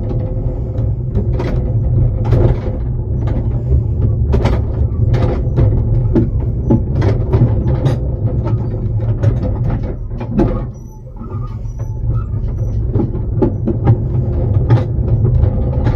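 Riding in a miniature railway coach behind its locomotive: a steady rumble of wheels on track with frequent knocks and rattles from the coach, easing briefly about eleven seconds in.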